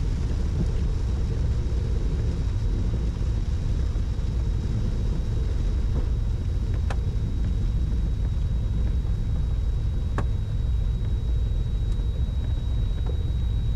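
Cabin noise of a Cessna 310Q rolling out on a wet runway after landing: its twin piston engines at low power give a steady low rumble. A thin steady high tone sets in a few seconds in, and there are a few faint clicks.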